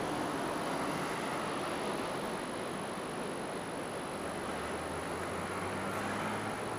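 Steady outdoor city traffic noise, with a low engine hum from a vehicle coming in about two-thirds of the way through.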